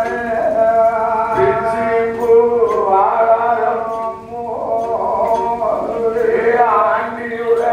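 A man sings a chanted narrative song in Tamil over a steady drone note, with a regular percussion beat ticking underneath.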